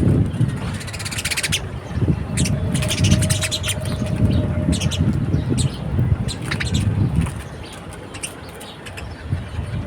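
Small birds chirping repeatedly at a feeder in short, quick calls over a steady low rumble. The rumble eases about two-thirds of the way through.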